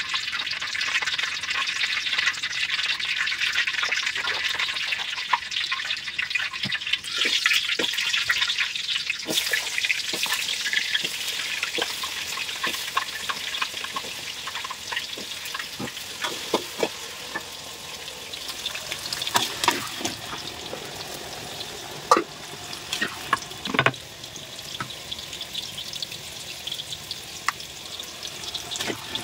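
Diced potatoes frying in hot oil in a steel wok: a dense, steady crackling sizzle that is strongest in the first third and then settles lower. Several sharp knocks come in the second half, the loudest about three-quarters of the way through.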